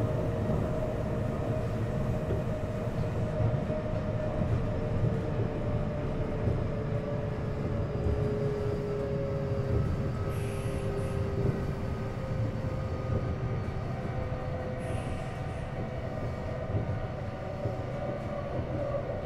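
Interior running sound of a Kintetsu 9820 series electric train: wheels rumbling on the rails under a steady motor whine that slowly drops in pitch. Two brief hisses come about ten and fifteen seconds in.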